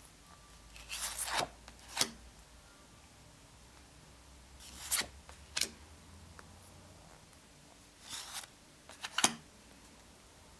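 Stiff printed postcards sliding against one another as they are leafed through by hand, about six brief rubbing swishes a second or a few seconds apart.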